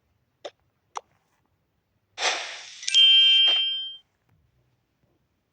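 Two light taps, then a brief rustling rush and a bright metallic ring with several clear tones that fades out over about a second.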